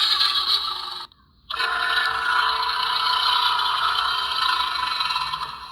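A person's voice making a hiss-like creature call as a sound effect for the extinct crocodyliform Laganosuchus. One call ends about a second in, and after a short break a longer one runs for about four seconds.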